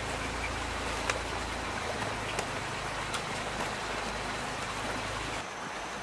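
Heavy rain falling steadily, with scattered sharp ticks of individual drops. A low steady hum runs underneath and cuts off near the end.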